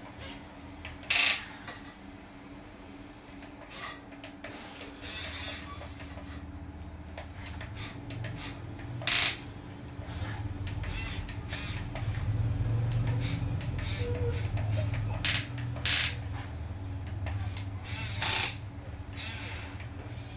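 Electric motors and gearboxes of an RC excavator running as its boom and bucket work in sand: a low hum that builds about a quarter of the way in and is loudest a little past the middle. Five or so sharp clicks and scrapes break through it.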